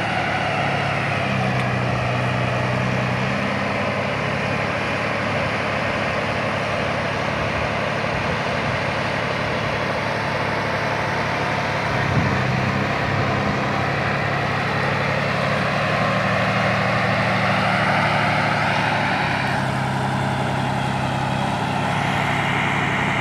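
Engine of a large vehicle, the mobile boom-lift crane being manoeuvred, running steadily, its low hum stepping up and down in pitch a few times.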